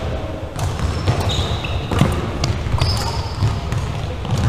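Badminton rally on a hardwood gym floor: sharp racket strikes on the shuttlecock and quick footfalls, with short sneaker squeaks on the wooden floor, over a low steady rumble of the hall.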